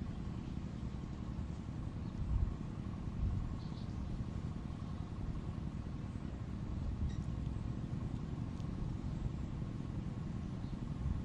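Steady low outdoor rumble, with two brief low bumps about two and three seconds in and a few faint high chirps.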